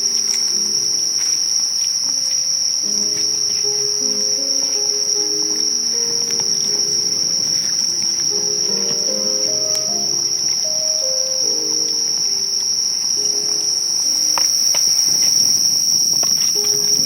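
Late-summer insects trilling in one steady, high-pitched, unbroken tone, with soft background music underneath.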